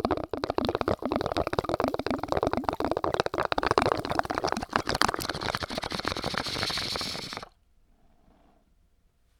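Water bubbling hard in a bong as smoke is drawn through it, a dense crackling gurgle that turns to a smoother hiss near the end and cuts off suddenly about seven and a half seconds in.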